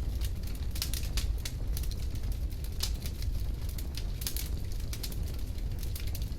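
Bonfire crackling: irregular sharp pops and snaps over a steady low rumble.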